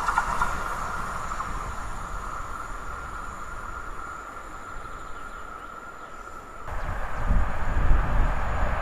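Pesa Impuls electric multiple unit running away down the line, its rail noise and steady high whine fading. About two-thirds of the way in, an abrupt cut brings in a louder low rumble as another train approaches.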